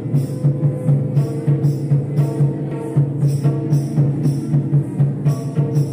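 Dance music led by a hand-beaten two-headed barrel drum (Santali tumdak') in a quick, steady rhythm of about three or four strokes a second, with held melodic tones sounding behind it.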